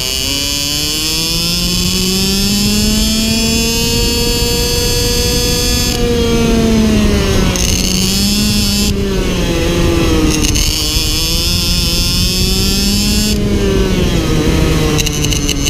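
IAME X30 Super 175 cc two-stroke shifter-kart engine running under race load. The revs climb for several seconds, fall off about six seconds in, then rise and fall twice more.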